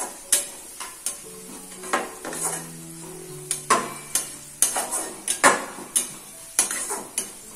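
A cooking utensil stirring chopped vegetables and cashews frying in a pan, with sharp, irregular scrapes and taps against the pan over a steady light sizzle.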